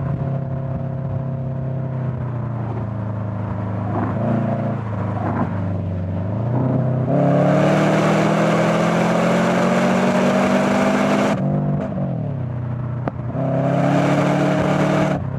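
Subaru Forester SG9's turbocharged flat-four engine through a Fujitsubo aftermarket exhaust. It runs at steady revs at first, then pulls hard under acceleration, louder, with the pitch climbing slowly. The pitch drops suddenly about eleven seconds in, then the engine pulls hard again near the end.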